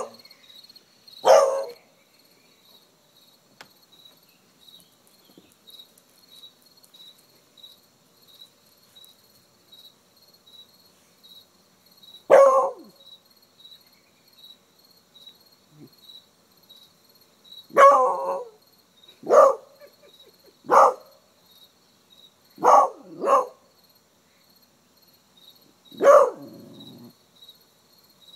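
Beagle barking in single barks, eight in all: one a second in, then after a long pause a run of barks one to two seconds apart, two of them close together. A steady, evenly pulsed high chirping goes on behind them.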